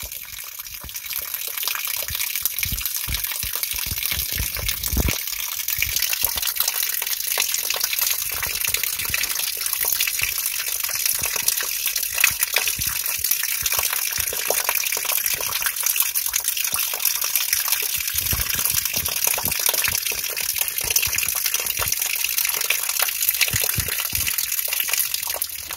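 Water welling up from the ground and bubbling through a muddy puddle, a steady gushing and gurgling. A few low bumps come in the first five seconds.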